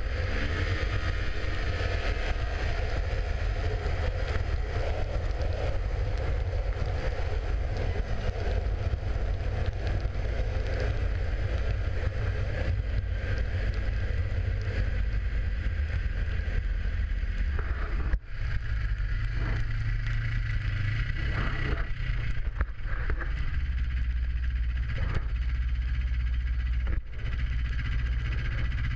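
Yamaha snowmobile engine running under way, its pitch rising and falling a little with the throttle, under heavy wind rumble on the microphone.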